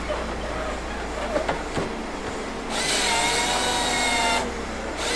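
Wood-processing machine working wood under a steady low hum, with a few knocks. About two and a half seconds in, a loud whining grind starts and cuts off about a second and a half later, then starts again near the end.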